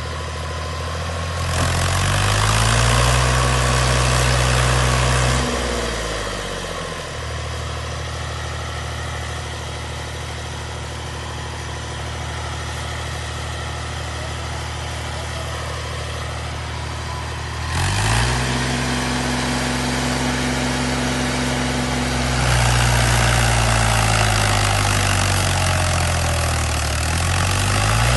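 Engine of heavy farm machinery idling and being revved in bursts. It revs up a second or two in and drops back to idle about six seconds in. It revs again about eighteen seconds in, climbs higher a few seconds later, and eases off near the end.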